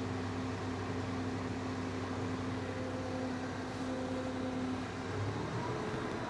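John Deere 5075E tractor's diesel engine running steadily while working a box blade in pond muck; its pitch changes about five seconds in.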